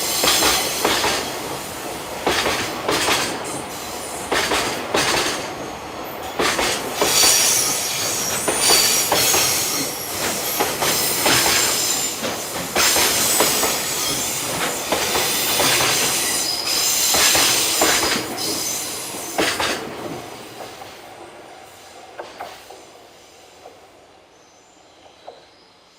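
Freight train cars rolling past over rail joints: a rapid, uneven clatter of wheel clicks with a high wheel-flange squeal above it. About 20 seconds in the train has passed and the clatter fades away.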